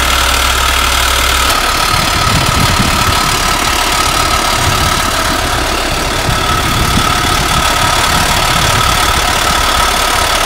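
Belarus T-40 tractor's air-cooled diesel engine idling steadily while the tractor sits stuck in mud, with a slight change in the low rumble about a second and a half in.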